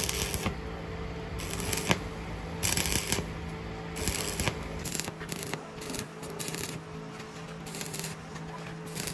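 Electric arc welding: the arc crackles and hisses in irregular bursts, each under about a second long, over a steady low hum.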